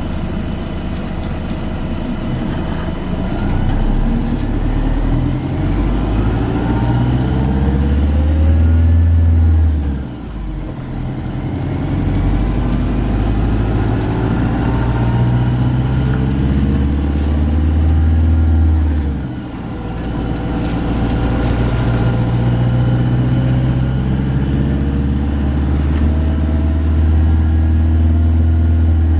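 Volvo B5LH hybrid bus drivetrain under way: a loud low engine note builds in long stretches, easing off sharply about ten seconds and again about nineteen seconds in, with thin whines rising in pitch as it pulls.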